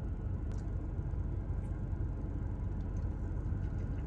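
A steady low rumble, with two faint clicks, about half a second and about a second and a half in.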